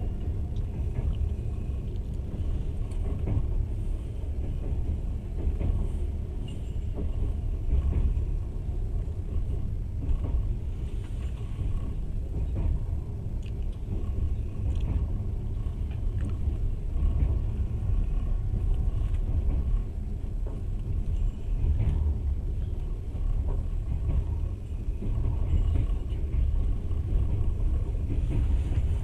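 Passenger train running at speed, heard from inside the carriage: a steady low rumble of wheels on the rails with faint scattered clicks and rattles.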